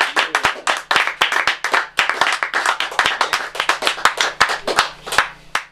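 Audience applauding, a dense patter of individual hand claps, which cuts off abruptly near the end.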